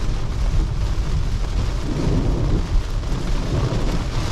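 Rain falling on a Tesla Model 3 and its tyres running over a wet road with standing water, heard from inside the cabin: a steady low rumble under an even hiss of rain.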